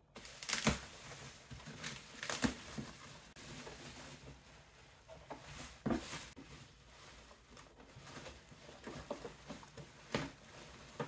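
Plastic bubble wrap rustling and crinkling as hands dig through a cardboard box of packing, with a few sharp knocks along the way.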